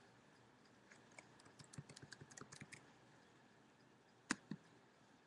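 Faint typing on a computer keyboard: a quick run of keystrokes from about a second in until nearly three seconds, then two sharper clicks close together about four seconds in.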